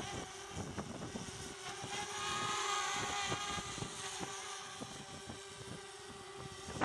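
Eachine Falcon 180 quadcopter's motors and propellers whining in flight. The whine swells louder and higher for a second or so about two seconds in as the quad works against gusts, and wind buffets the microphone.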